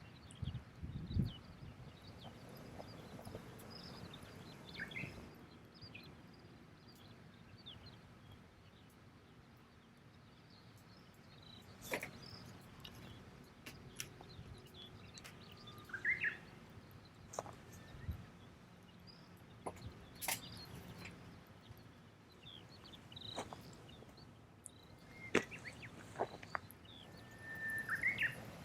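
A campfire of damp firewood crackling with scattered sharp pops, while small birds chirp a few times. A few low knocks come about a second in.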